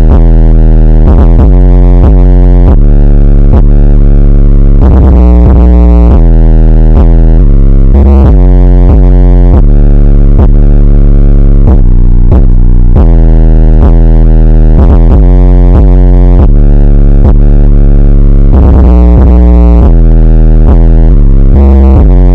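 Bass-heavy electronic music played very loud, built on long, deep bass notes that change pitch every second or so, with synthesizer tones above.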